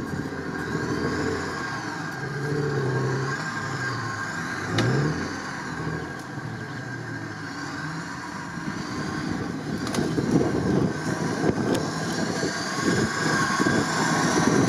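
Stock UAZ-469's engine revving up and down as it drives through mud and water, with a high whine rising and falling along with the revs. It grows louder in the last few seconds as the jeep comes closer.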